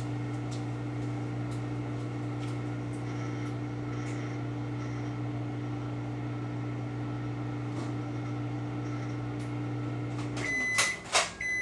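A countertop cooking appliance hums steadily while it runs, then shuts off near the end with a couple of clicks and starts beeping the end of its cycle.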